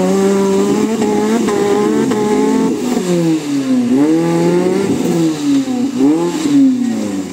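Maruti Gypsy's engine revving hard under load as it tries to power out of a muddy water pit. It holds high revs for about three seconds, then the revs fall and rise again several times as the throttle is worked, easing off near the end.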